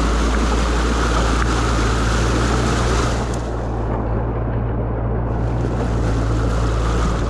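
Muddy stream water rushing steadily through a beaver dam as it is being pulled apart, a loud even rush with a deep rumble underneath. The higher hiss drops away for a second or two midway.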